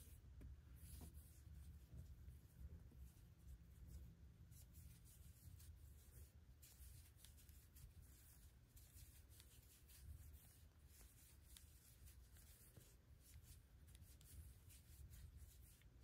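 Near silence with faint, irregular rustling and light scratching: a metal crochet hook drawing a double strand of cotton yarn through stitches while the hands handle the work, over a low steady room hum.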